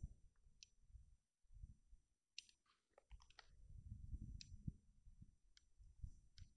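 Faint, scattered sharp clicks, about half a dozen, over a low rumble; otherwise near silence.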